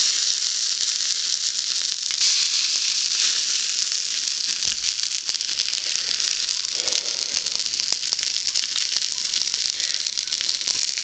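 Fire Patty tinder burning with a steady sizzle and crackle, still alight after being doused with water.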